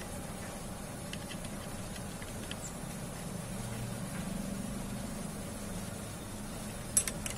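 Small metallic clicks of hand-handled motorcycle clutch parts, pressure plate and bolts, faint at first and then sharp near the end, over a steady low hum.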